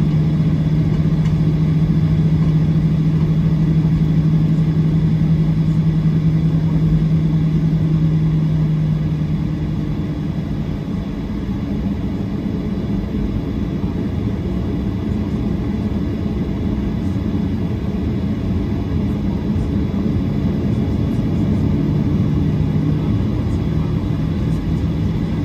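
Jet airliner cabin noise while taxiing: a steady engine rumble with a low hum on top. The hum fades about ten seconds in, when the sound drops a little, and returns briefly near the end.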